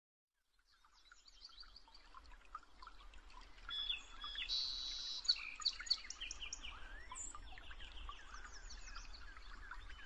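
A chorus of many songbirds chirping and trilling, fading in after about a second of silence, over a faint low rumble.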